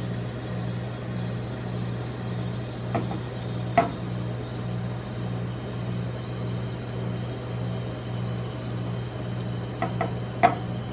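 Steady, slightly pulsing low hum of a rolled ice cream machine's refrigerated cold plate. A few sharp taps with a short ring cut through it: two about three to four seconds in and three close together near the end, likely spatulas striking the steel plate.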